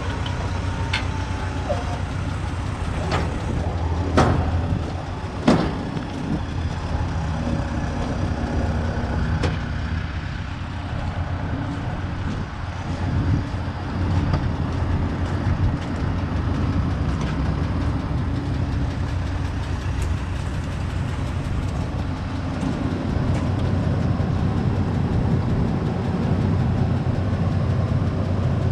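A 2008 Ford F-250 pickup's engine idling steadily. Two sharp knocks come about four and five and a half seconds in.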